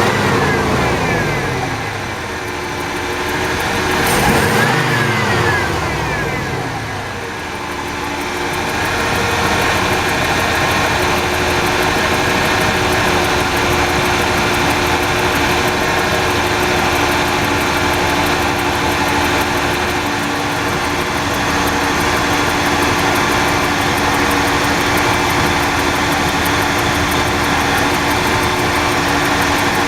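An engine running, its speed rising and falling in the first several seconds and then settling into a steady idle.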